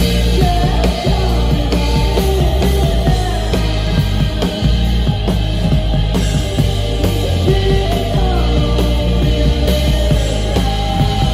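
Rock band playing live and loud: drum kit keeping a steady beat under electric guitar and bass guitar.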